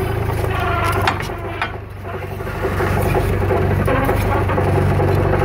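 Terex TC25 mini excavator's diesel engine running steadily, getting a little louder about halfway through as the track drive is worked to pull the new rubber track onto the sprocket. There are two sharp metallic knocks about a second in.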